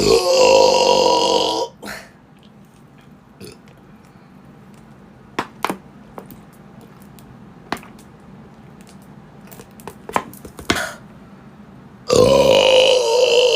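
A woman belching deliberately, twice: a long, loud belch of about two seconds held on a steady pitch, then a quiet stretch with a few small clicks, then a second long belch near the end.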